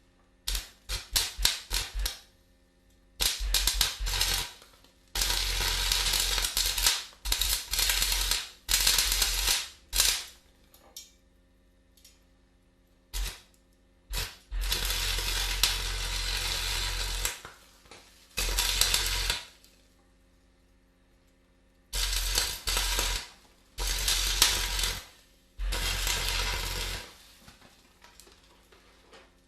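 Arc welding: an arc struck a few times in quick succession, then a series of sizzling, crackling welds lasting about one to three seconds each, broken by short pauses, with a low hum under each burst.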